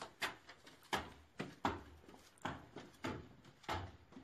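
Footsteps of two people climbing bare concrete stairs: a run of short scuffs and slaps, roughly one every half-second to second.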